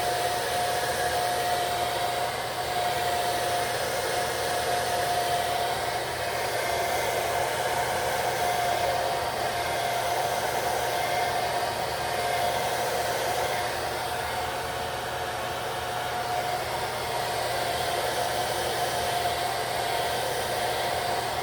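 Hair dryer blowing steadily, its motor giving a steady whine over the rush of air, drying the lace-wig adhesive.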